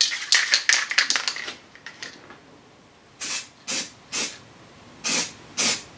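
An aerosol can of primer being shaken, its mixing ball rattling for about two seconds, then five short bursts of spray hiss from the nozzle, the primer going onto a freshly welded and ground repair patch.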